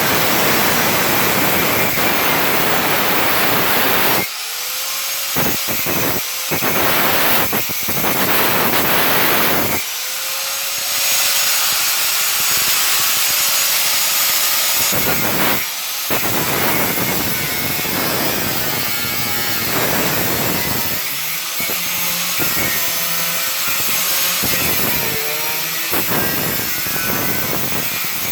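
Angle grinder cutting into a panel. Its loud grinding noise keeps dropping off briefly and coming back, with the motor pitch sagging and rising again as the disc bites and eases off.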